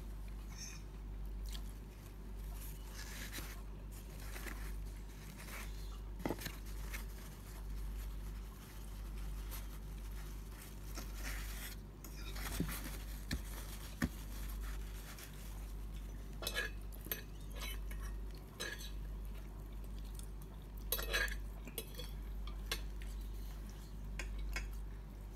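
Someone eating pizza: soft chewing with scattered sharp clicks and taps, a few bunched together around the middle and again later, over a steady low hum.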